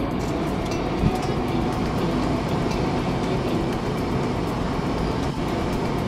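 Steady mechanical rumbling and hissing from a cartoon car-wash machine as its coiled pipes work over a backhoe loader, with a short thump about a second in.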